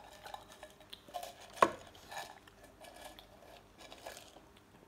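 Mr. Potato crisp canister being tipped and handled, with a string of light knocks and clatters from the crisps and can and one sharp click about a second and a half in.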